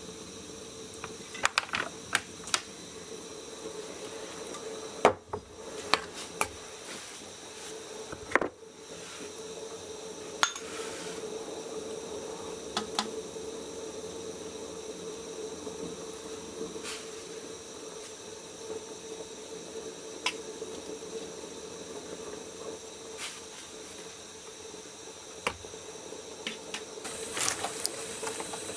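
Pot of oysters boiling in water: a steady bubbling hiss with a low hum underneath, broken by scattered sharp pops and clicks, several of them in the first nine seconds and a cluster near the end.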